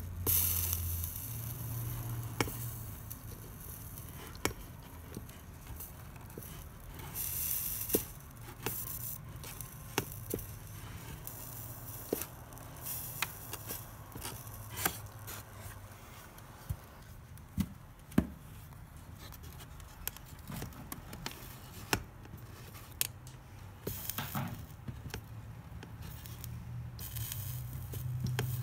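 Soldering iron running solder along a copper-foiled stained glass seam. Flux sizzles in short hissing bursts, with scattered sharp clicks and taps throughout.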